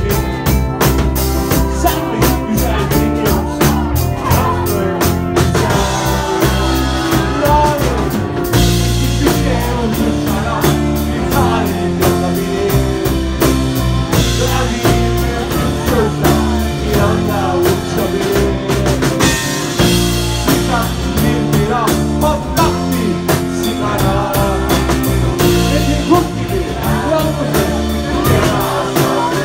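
Rock band playing live: drum kit, bass guitar and electric guitars, loud and continuous.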